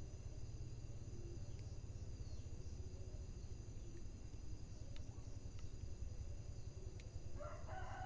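Wood fire burning with a low steady rumble and a few sharp, scattered crackles. Over a steady high-pitched background, a rooster starts crowing about seven seconds in.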